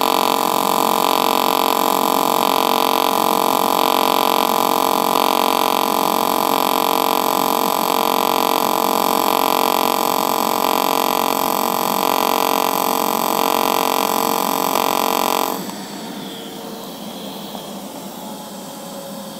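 Pulsed DC TIG welding arc from an HTP Independence 210 AC/DC inverter welder: a steady electric buzz from the 50 Hz high-speed pulse, swelling and fading in a slow 0.8 Hz throb, one swell about every second and a quarter, from the low-speed pulse. The arc runs at full pedal, 120 amps, because the pulse settings are cold. It cuts off about three-quarters of the way through, leaving a faint steady background noise.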